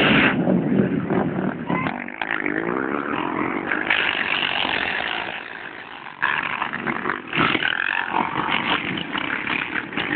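ATV engines running hard and revving, their pitch rising and falling. The sound fades for a moment just past the middle, then comes back loud about six seconds in.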